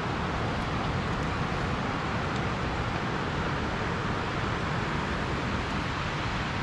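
Steady rush of a creek's water running over cascades.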